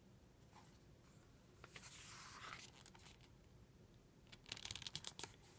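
Page of a picture book being turned: a soft paper swish about two seconds in, then a few light rustles and taps near the end as the page settles.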